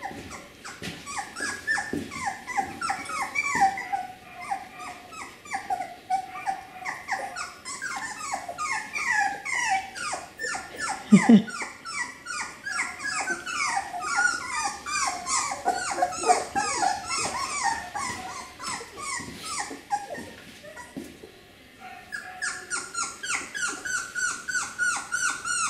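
Beagle puppy whining and crying in a steady run of short, high, falling whimpers, about three or four a second, with a brief pause near the end. One louder, lower cry stands out about eleven seconds in.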